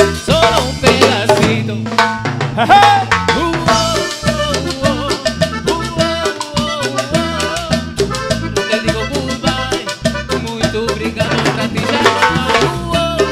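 A live Latin dance band playing, with a steady, fast drum and percussion beat under pitched instruments.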